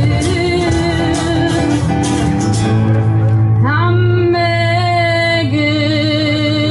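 Live band music: a female singer over stage piano, bass guitar, acoustic guitar and cajón. The percussion stops about two and a half seconds in, and the band holds a chord under a long sung note at the close of the song.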